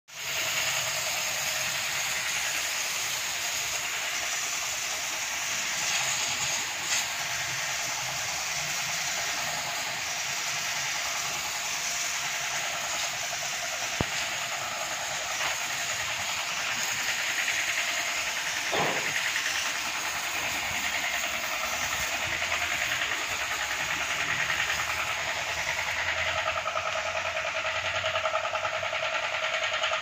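Portable high-pressure washer pump running with its water jet spraying, a steady hiss, with a single sharp click about halfway through.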